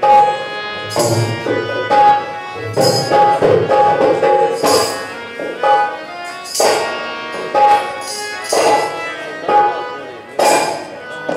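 Live Rajasthani folk music: held melodic notes over drumming, with a sharp accented stroke about every two seconds.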